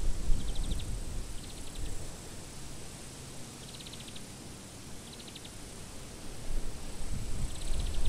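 Wind buffeting the microphone in low gusts, strongest at the start and again near the end. Over it an insect in the meadow grass chirps five times, each a short, high train of rapid ticks.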